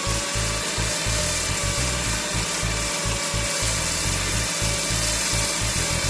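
Drill press running and boring into wood: a steady motor whine under continuous cutting and chip-clearing noise as the bit cuts through the board.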